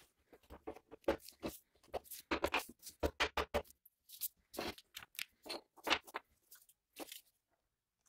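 Handling noise from gloved hands working on a knife's metal tang and parts on a wooden surface: a run of crunchy rustling and scraping with small clicks, then a few separate sharp clicks and knocks.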